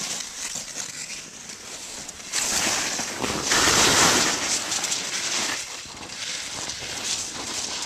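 Skis hissing through deep powder snow in uneven swells, loudest from about two and a half to five seconds in.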